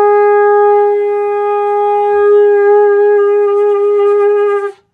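Conch shell (shankh) blown in one long, steady, loud note of about four and a half seconds that cuts off near the end: the ritual conch call of a Ganesha puja.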